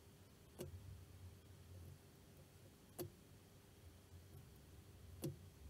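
Three sharp clicks spaced about two and a half seconds apart over a faint steady hum: metal parts of an aluminium air-rifle regulator assembly being handled and fitted with circlip pliers.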